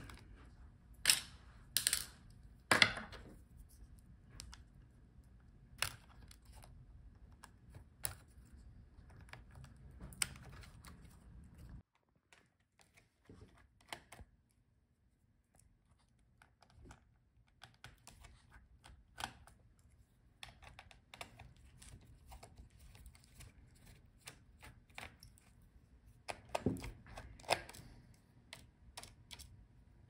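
Small clicks, taps and scrapes of a thin pry tool working the video-cable connectors loose on a Dell laptop's motherboard, with a few sharper clicks in the first three seconds and a cluster near the end.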